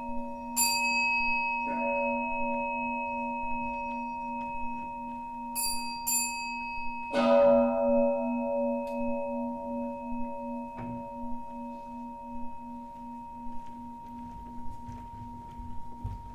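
Singing bowls struck several times, each ringing on long with a slow, pulsing waver in the low tone. Brighter, higher strikes ring briefly among them, and a heavier strike about seven seconds in is the loudest.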